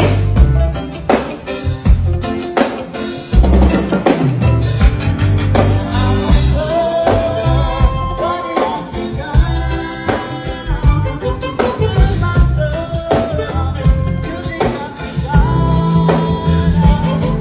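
Live band playing a song during a sound check: drum kit with steady snare and bass drum hits under a bass line and held melodic tones.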